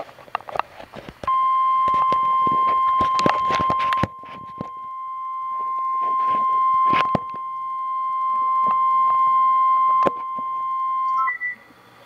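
NOAA Weather Radio warning alarm tone (1050 Hz), played through computer speakers from an online weather-radio stream. It is one steady high beep that starts just over a second in and holds for about ten seconds, then cuts off. Scattered clicks and crackles sound over it, and its loudness jumps a few times. The tone is the alert signal that comes before the broadcast of a tornado warning.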